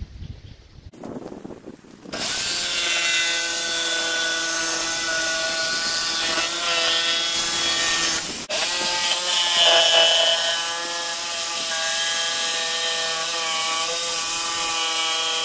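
Corded Ryobi jigsaw cutting thin 6 mm plywood: the motor starts about two seconds in and runs with a steady whine while the blade saws through the board, dropping out for an instant just past halfway.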